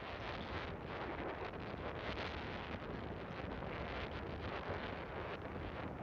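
Atlantic surf washing onto the beach, mixed with wind buffeting the microphone; a steady rushing noise with small swells.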